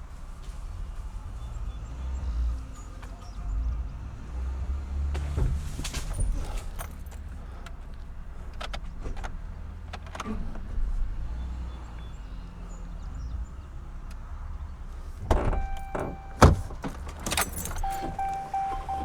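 Golf cart running with a steady low rumble as it pulls on a rope tied to a broken tree limb, with scattered knocks. About sixteen and a half seconds in there is a loud crack as the limb comes down, and a steady high beep sounds near the end.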